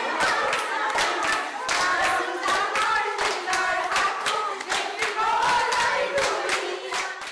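A group of young women singing together while clapping a steady beat with their hands. The claps go on evenly throughout, cutting off sharply at the end.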